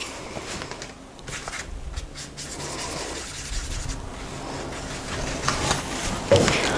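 Paintbrush bristles rubbing and scrubbing through acrylic paint on a paper palette as yellow paint is mixed, in short irregular strokes, with a single sharper knock near the end.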